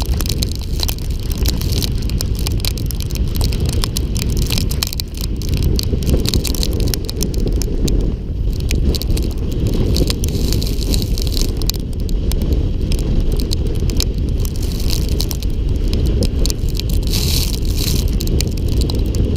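A volcano board sliding fast down loose volcanic gravel: a steady loud scraping with a dense crackle of grit and small stones, over a low rumble of wind buffeting the camera microphone.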